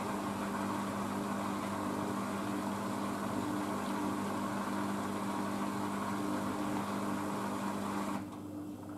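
Blomberg WNF9448 front-loading washing machine running with a steady hum as the drum turns the laundry, working up to its final spin. A hiss over the hum drops away about eight seconds in.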